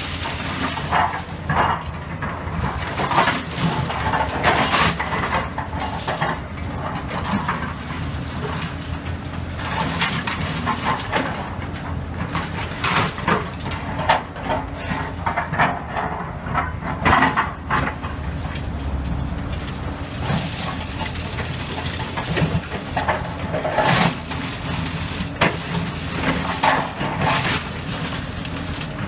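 Excavator's diesel engine running steadily under repeated irregular clanks and scrapes of its bucket working through concrete rubble and steel rebar.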